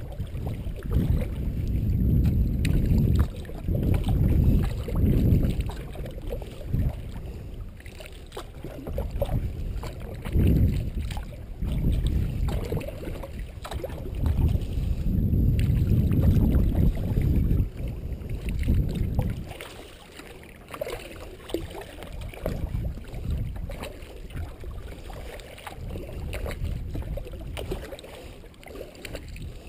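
Sea kayak being paddled: paddle strokes and water moving against the hull, with heavy low rumbling that comes and goes for the first twenty seconds or so. After that it turns quieter, with light splashes.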